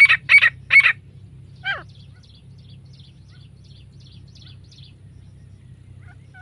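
Female grey francolin calling: a fast run of loud, clipped notes, about three a second, that stops about a second in, followed by a single falling call. Faint high chirps of small birds go on after it.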